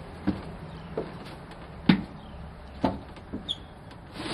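Dull thumps and knocks, about five over four seconds, the loudest about two seconds in, from large plastic coolers being shifted and loaded in a pickup truck bed. A low steady hum runs underneath.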